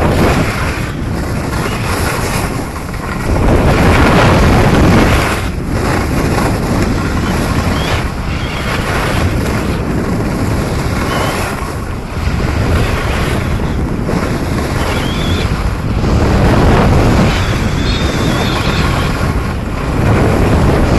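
Wind rushing over a pole-held camera's microphone during a downhill ski run, mixed with the hiss and scrape of skis on groomed snow. It keeps rising and falling in surges every few seconds.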